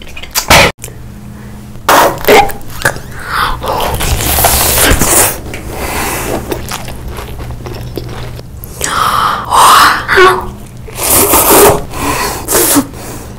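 Close-miked eating and drinking sounds: a run of loud bites and chewing on corn on the cob, then slurping through a straw near the end, over a steady low hum.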